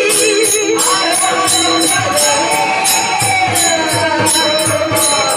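A voice sings a long, wavering melodic line over a steady drone, with jingling hand percussion keeping an even beat of about three strokes a second. It sounds like devotional singing.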